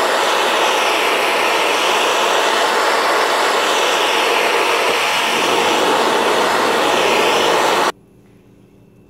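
Acetylene torch flame hissing steadily as it heats a sterling silver strip to a glow, annealing it before rolling; the hiss stops abruptly near the end.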